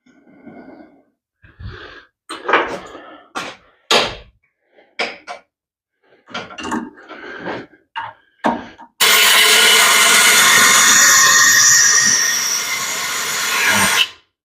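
Handling clatter and knocks of tools and parts on a workbench, then a power tool runs loudly and steadily for about five seconds and stops.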